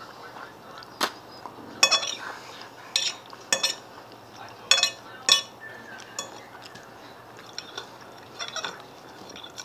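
Fork clinking and scraping against a plate while eating spaghetti and salad, in a string of short, irregular clicks.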